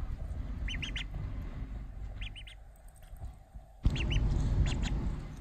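Duckling peeping: short high peeps in quick groups of about three, repeated several times. Underneath runs a low rumbling noise that jumps louder a little before four seconds in.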